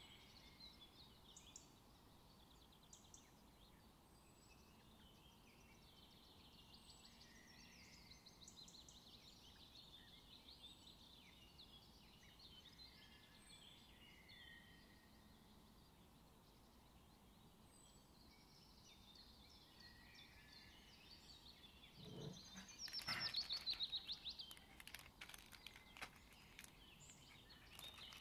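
Faint bird chirping and calling in the background, with a short cluster of louder clicks and rustles a little over three-quarters of the way through.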